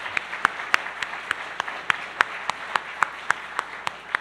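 Audience applauding, with one clapper close by giving sharp, evenly spaced claps about three or four times a second over the general applause.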